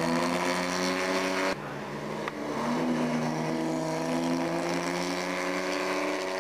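Vintage sports racing car engines running hard at speed. The engine note breaks off abruptly about a second and a half in at an edit, then comes back with a pitch that climbs slowly.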